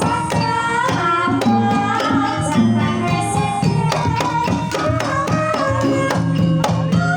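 Banyumasan gamelan music in tayub style: a hand drum beats frequent strokes over the ringing pitched gamelan instruments, and a female singer's voice weaves a wavering melody through it.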